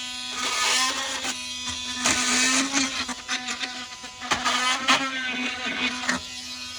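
Oscillating multi-tool running at a steady high buzz while its blade cuts through nails behind a clapboard, with harsh rasping surges as it bites into the metal. The tool stops near the end.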